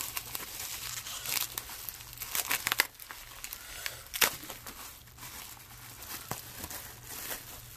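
Plastic bubble wrap crinkling and crackling in the hands as a phone is unwrapped from it, with sharp snaps and a shipping-label sticker torn apart.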